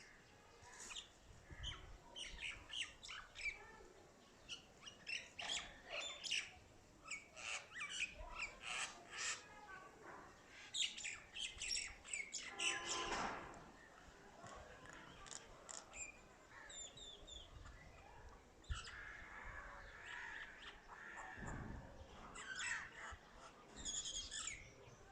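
Mynah bird calling: a busy, varied run of short chirps, whistles and squawks one after another, with a couple of longer drawn-out calls in the middle.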